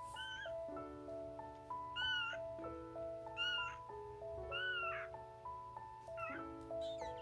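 Young kitten meowing repeatedly, short high cries about every one and a half seconds, over background music.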